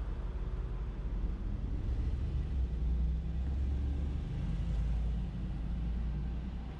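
Street traffic: a low car engine rumble that swells as a car passes, loudest about halfway through.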